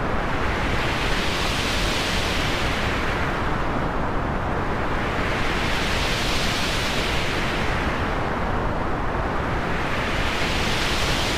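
Synthetic noise sweep transition effect: a steady hiss whose brightness swells and fades smoothly about every four and a half seconds, like slow repeating whooshes.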